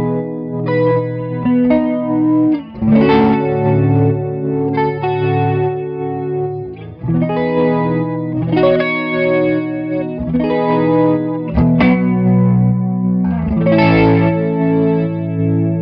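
Electric guitar chords played through an MXR Micro Chorus paired with a DLS Effects stereo tremolo, the chorus and tremolo together imitating the swirl of a Leslie rotary speaker. The chords are struck every second or few seconds and left to ring.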